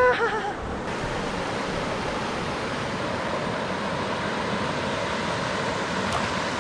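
Waterfall pouring into a pool, a steady, even rush of water. Just at the start a short, loud high call dies away.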